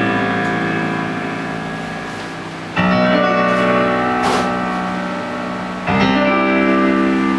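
Piano playing slow, sustained chords in a song's intro. A new chord is struck about every three seconds, twice here, and each one rings and fades. There is a short high swish near the middle.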